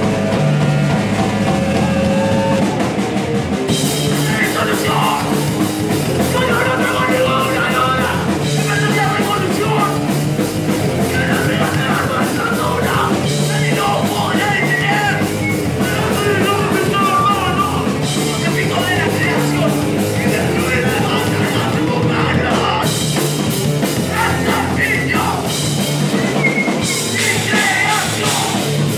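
Live hardcore punk band playing loud and fast: distorted electric guitar at first, then the drum kit comes in with crashing cymbals about four seconds in and the full band drives on, with a vocalist shouting over it.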